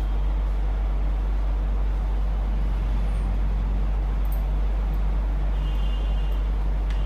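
A steady low hum with no change in level, with a faint high whine near the end.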